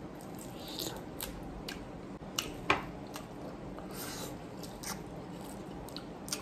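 Close-miked eating sounds from people eating saucy shrimp by hand: wet chewing, lip smacks and sucking at fingers and shrimp, with scattered small clicks, two sharper ones about two and a half seconds in.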